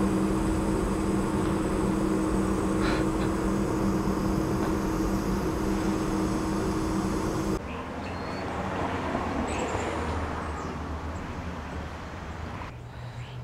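Steady mechanical hum and rushing noise from a building's mechanical unit venting steam through stainless exhaust stacks. It cuts off suddenly about seven and a half seconds in, leaving quieter outdoor noise with a low hum.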